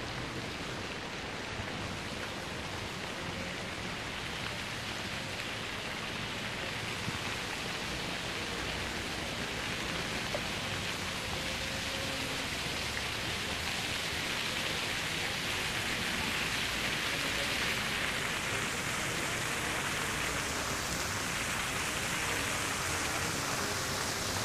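Steady rushing noise, slowly growing louder.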